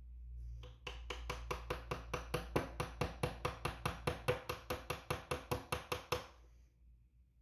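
Small brass-faced hammer tapping the ejector retaining pin into a Desert Eagle bolt: a rapid, even run of light metal taps, about five a second, that stops about six seconds in.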